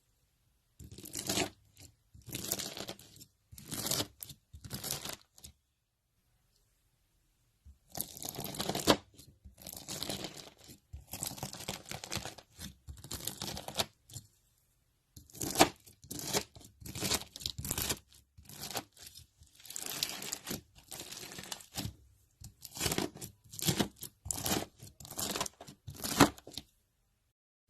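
Slime being handled, making a series of short, noisy squelching and crackling bursts broken by pauses, with two silent stretches of about two seconds.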